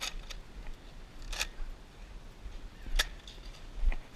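Five irregularly spaced sharp clicks and short hissy puffs; the puff about a second and a half in is the longest, and the click about three seconds in is the sharpest.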